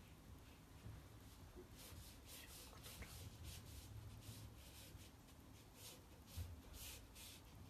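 Faint, short swishes of a paintbrush stroking across watercolour paper, about two a second, starting about two seconds in.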